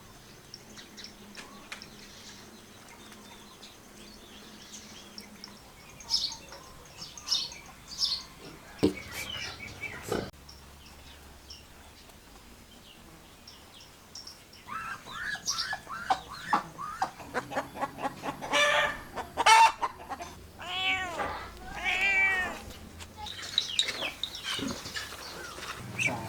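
Domestic animal calls. There are a few scattered high calls and two sharp knocks in the first half, then a dense run of short, pitched, arching calls over the last ten seconds or so.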